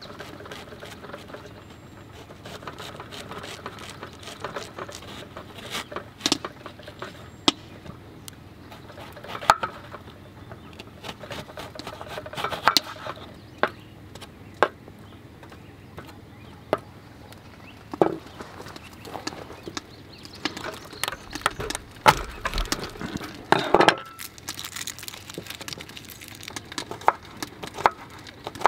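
Small knife chopping an onion and then garlic on a wooden cutting board: irregular knocks of the blade striking the board, some sharper than others.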